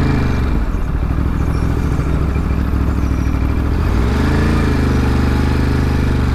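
Ducati Monster's V-twin engine running at low speed in traffic; the revs rise and drop briefly at the start, then climb again about four seconds in and hold steady.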